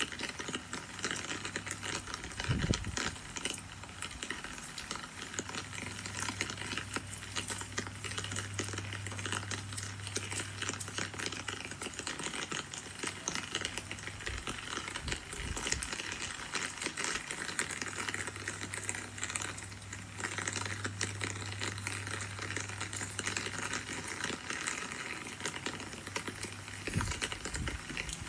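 Steady rain falling: an even hiss made of many small drops. A low hum runs under it, with a few dull low thumps, one about three seconds in and one near the end.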